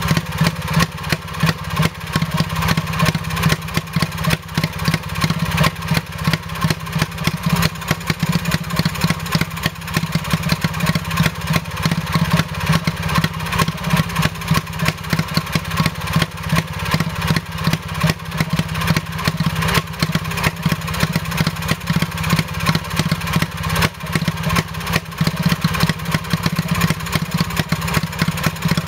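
1934 Villiers WX11 (WBH variant) 2.5 hp hopper-cooled single-cylinder two-stroke stationary engine running steadily on its centrifugal governor, with a noisy, rapid, even exhaust beat.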